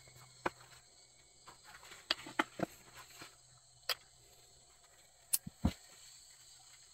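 Steady high insect chirring throughout, broken by scattered sharp clicks and knocks: a cluster a couple of seconds in and another near the end.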